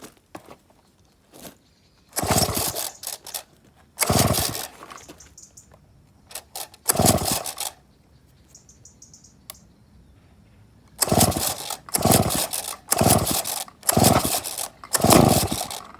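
Pull-starter of a vintage Danarm DD8F chainsaw's 98cc Villiers two-stroke engine yanked eight times, the engine spinning over briefly on each pull without catching. The first three pulls are spaced out, then five come in quick succession about one a second.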